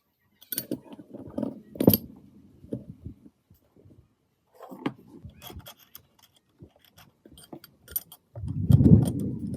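Metal gearbox parts and tools clinking and knocking as they are handled: irregular light clicks, a sharp knock about two seconds in, and a louder, heavier knocking near the end.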